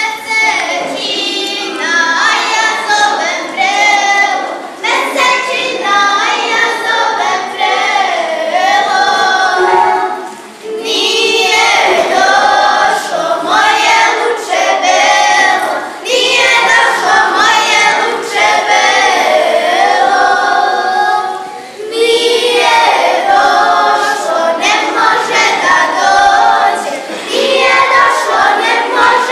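Group of girls singing together, unaccompanied, in long phrases with brief breaks between them.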